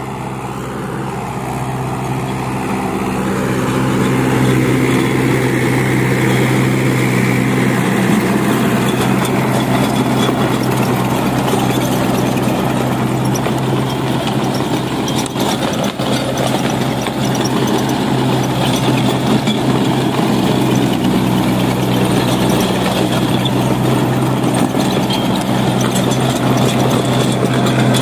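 Mahindra 575 DI tractor's four-cylinder diesel engine running steadily under load while driving a rotavator through the soil, with the rotavator's blades churning the earth. The sound grows louder over the first few seconds, then holds steady.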